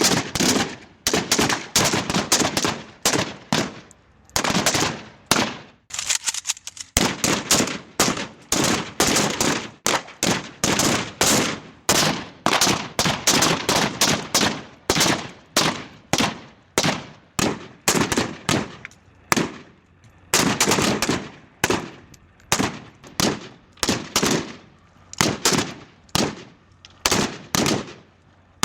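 AK-47 assault rifle firing in repeated bursts of rapid shots, each shot with a trailing echo.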